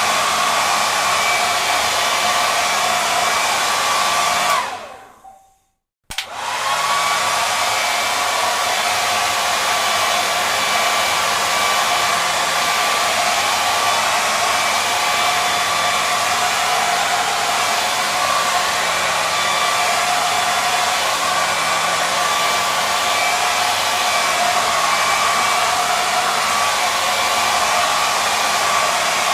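Hair dryer running with a steady whirring rush and a high motor whine. About four and a half seconds in it is switched off and the motor winds down in pitch to silence. After about a second there is a click and it starts up again, running steadily to the end.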